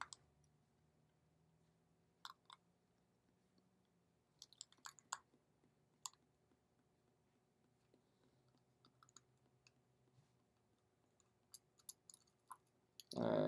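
Faint, scattered clicks and taps of a small screwdriver and the metal padlock being handled while small screws are worked loose, a few at a time with gaps of near silence between them.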